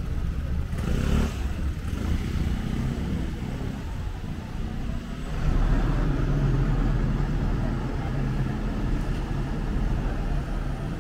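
Road traffic: motor vehicles running and passing, a steady low engine hum that grows louder about halfway through as a vehicle comes close.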